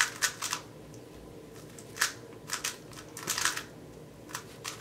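Non-magnetic SpeedCubeShop Cosmic GTS 2 speed cube being turned quickly: clusters of short plastic clicks and scrapes as its layers snap round, with a pause of about a second and a half near the start. The cube is heavily lubed and turns gummy.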